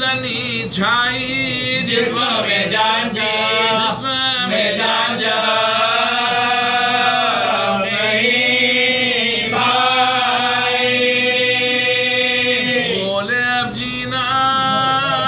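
Men's voices chanting an Urdu marsiya, an elegy, without accompaniment, in long drawn-out melodic lines.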